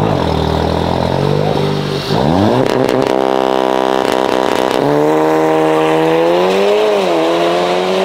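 Modified Volkswagen Golf engine revving hard: the revs climb steeply about two seconds in and hold high, drop and climb again about halfway through, dip briefly near the end and hold high once more.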